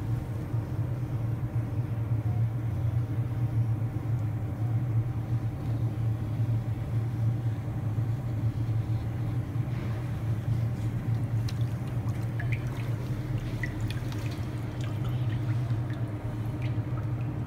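Steady low machinery hum throughout, with light splashing and dripping of water from about ten seconds in, as a part is worked by hand in a hydro-dipping tank and lifted out dripping.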